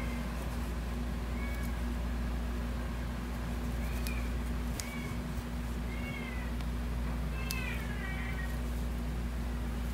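Cat meowing faintly about six times, short calls that rise and fall in pitch, over a steady low hum.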